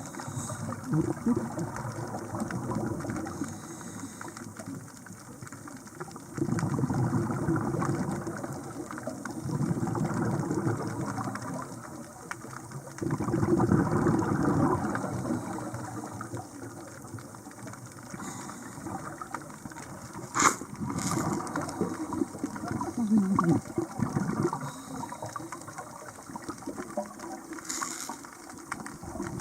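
Underwater sound of scuba divers breathing through their regulators: exhaled bubbles gush out in swells a few seconds apart over a steady hiss, with a few sharp clicks, the loudest about twenty seconds in.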